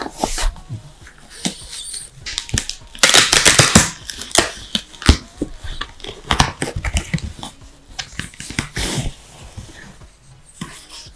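Rustling and crinkling of a headset's wrapping as it is pulled open by hand, loudest in a dense stretch about three seconds in, with a French bulldog sniffing and snuffling at the box.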